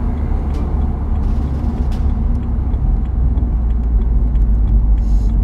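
Steady low rumble of wind, engine and road noise inside a BMW Z4 roadster driving along with its roof down, the wind buffeting the microphone.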